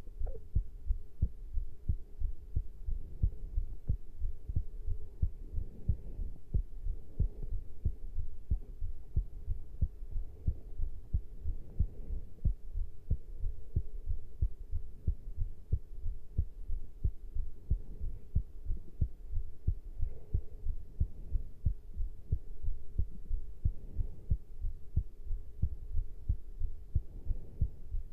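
Human heartbeat after caffeine intake: steady, regular low thumps in lub-dub pairs, with a faint steady hum underneath.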